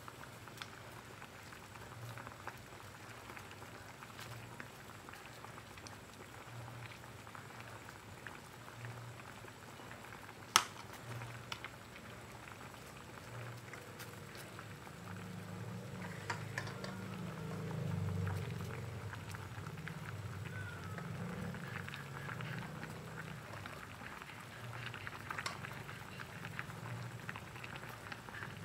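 A pot of pumpkin chunks and pandan leaves at a rolling boil on a gas burner, the water bubbling steadily. A low rumble swells for several seconds midway through. One sharp click, about ten seconds in, is the loudest sound.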